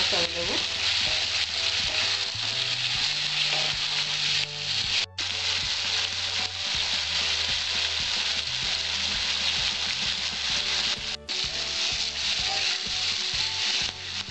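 Onion and green capsicum pieces sizzling in hot oil in an aluminium kadai on a high gas flame, with a wooden spatula stirring and scraping the pan now and then. The sizzle breaks off for an instant twice.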